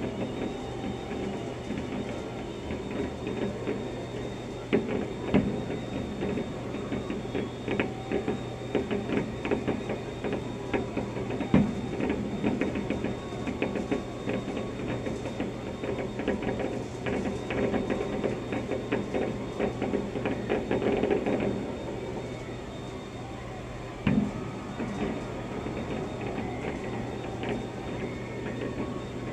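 Fireworks heard through a window: dense crackling and popping with a few heavier thumps, thinning out near the end, over a steady low hum.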